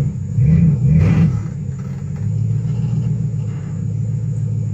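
Truck engine revving, its pitch rising and falling about three times in the first second or so, then running at a steady drone under load as it pulls on a tree to bring it down.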